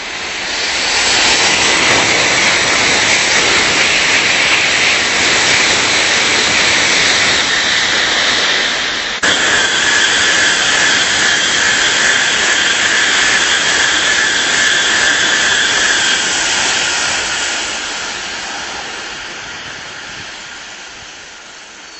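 Tokaido Shinkansen high-speed train passing at speed: a loud rushing noise with a steady high whine. It builds about a second in, breaks off suddenly about nine seconds in and resumes, then fades away over the last several seconds.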